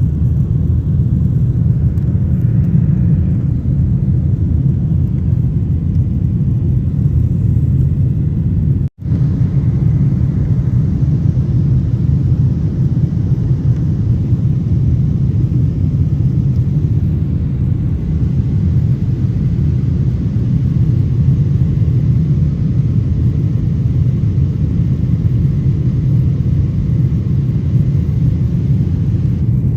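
Airliner cabin noise: the steady low rumble of the engines and airflow heard from inside the cabin in flight. About nine seconds in it cuts out for a split second and comes straight back.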